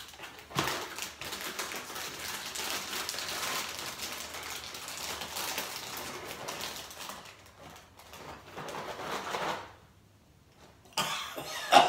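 Plastic inner bag of a cereal box crinkling and rustling as it is pulled open by hand, a dense crackle lasting about nine seconds. A brief, louder sound follows near the end.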